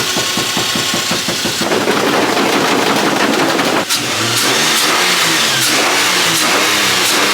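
A motor running loudly and steadily, a thick noise that fills out about a second and a half in, with a short dip about four seconds in.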